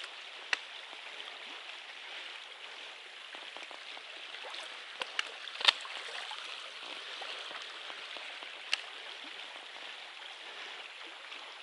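Shallow creek water running over a gravelly riffle: a steady rushing hiss. A few short sharp clicks sound over it, the loudest a little before halfway through.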